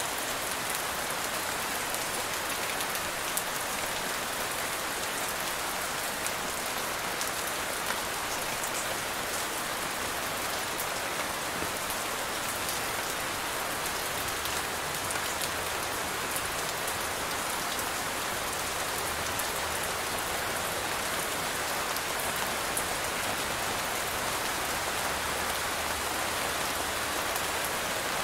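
Steady rain falling, with a constant hiss and scattered drops ticking.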